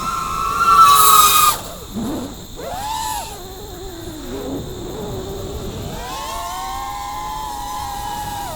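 GEPRC Mark 5 FPV freestyle quad's brushless motors and propellers whining, the pitch rising and falling with the throttle. The loudest moment is a punch-out about a second in, with a rush of noise. The whine then drops away sharply near two seconds, swells briefly, and settles into a steadier high whine for the second half.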